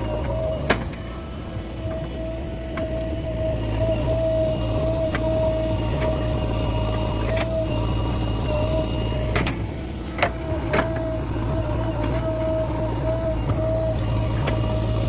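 A JCB machine's diesel engine running steadily with a constant whine over a low rumble, and a few sharp knocks, two of them close together about two-thirds of the way through.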